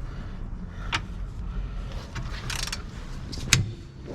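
Hand ratchet working on the Civic's rear control-arm bolts: a click about a second in, a short burst of ratcheting midway, and a metal knock near the end.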